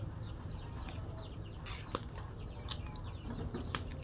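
Metal ladle stirring a wok of soupy stew, knocking sharply against the pan a few times, over a steady low rumble. Birds chirp repeatedly in the background, short falling calls many times a second.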